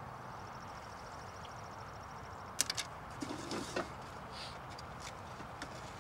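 Outdoor ambience: a steady hiss with a rapid high trill, then a few sharp clicks about two and a half seconds in and a brief lower sound just after.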